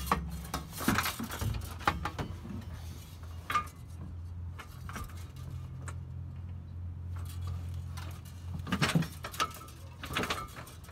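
Metal clanks and rattles of a sheet-metal exhaust heat shield and a steel trailer hitch being pushed up against a car's underbody, as the hitch is worked into position but binds against the shield for lack of clearance. The knocks come in a cluster at the start, once about a third of the way in, and again near the end, over a low steady hum that drops away near the end.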